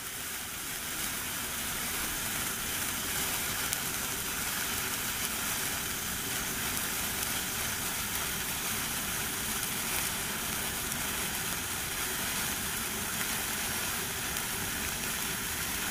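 Sparkler firework burning from three points on one stick, giving a steady sizzling hiss with an occasional faint crackle.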